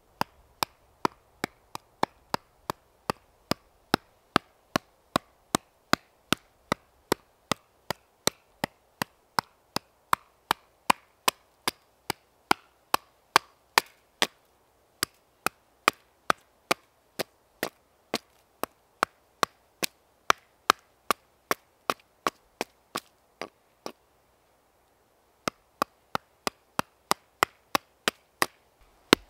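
Small axe chopping wood in quick, even strokes, about two to three a second, pausing briefly about halfway and for a couple of seconds near the end.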